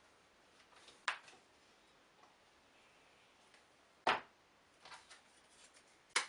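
Sharp knocks and light clicks of wooden veneer strips being handled, stacked and set down on a wooden workbench: three louder knocks, about one, four and six seconds in, the middle one the loudest, with softer ticks between.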